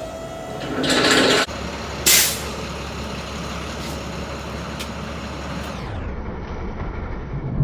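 Truck at idle with air hissing out twice: a long hiss about a second in and a short sharp one about two seconds in, typical of an air brake, over a steady low engine hum.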